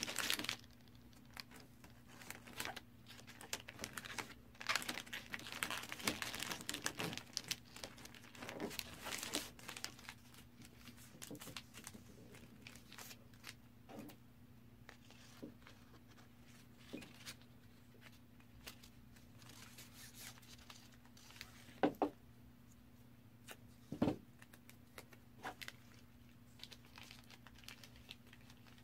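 Coloured paper rustling and crinkling as a paper strip is handled and rolled, busy at first and then sparser. Two louder knocks come later on, about two seconds apart.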